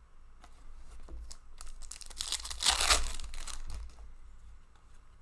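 Hockey trading cards being handled: cards sliding and rubbing against each other, with a loud crinkly rasp about two to three seconds in.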